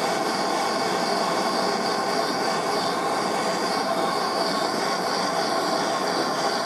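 Machine tool running steadily while cutting a brass part: a continuous rushing noise with a faint high whine held over it.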